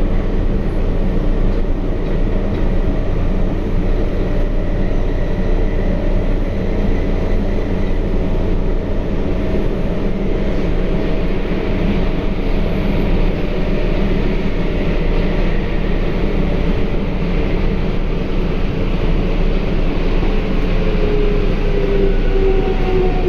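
Sendai Subway Namboku Line 1000N series train running, heard from inside the car: a steady loud rumble of wheels and running gear. Near the end, the IGBT-VVVF inverter's tones fall in pitch as the train slows.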